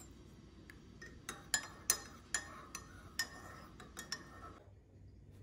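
Metal spoon stirring coffee and clinking against the inside of a ceramic mug: about ten quick clinks, starting about a second in and stopping shortly before the end.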